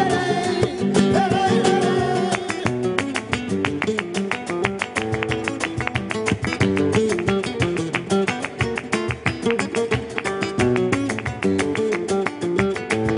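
Flamenco music: a sung line ends about two seconds in, then a fast flamenco guitar passage of rapid plucked notes takes over, with hand-clapping (palmas) keeping time.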